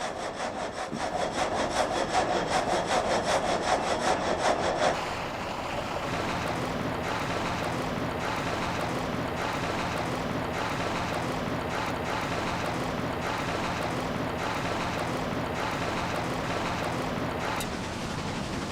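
Water-powered vertical frame saw cutting timber, its blades rasping through the wood in rapid, even strokes. About five seconds in the sound changes abruptly to a steadier, lower running of the mill's drive and saw frame, with a slow beat about once a second.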